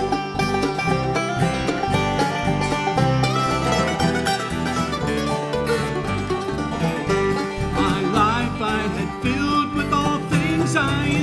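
Country-gospel band playing the instrumental introduction to a song: plucked strings over a steady beat, with a few sliding notes in the second half.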